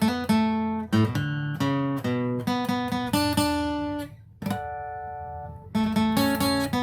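Acoustic guitar picking a quick melody of single notes. About four seconds in there is a brief gap and a held note, then the picking starts again.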